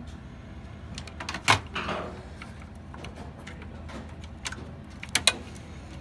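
Hard plastic clicks and knocks of computer-case parts being handled and fitted: one loud click about one and a half seconds in, followed by a brief scraping rustle, and two sharp clicks close together near the end.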